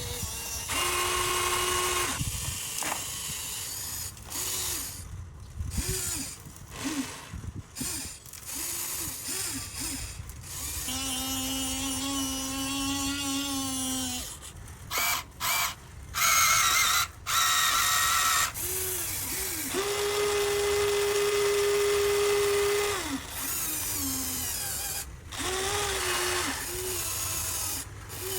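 Small electric gear motors of a Huina RC excavator whirring in repeated stop-start runs: many short blips with quick rises and falls in pitch, and several longer runs at a steady pitch lasting two to three seconds.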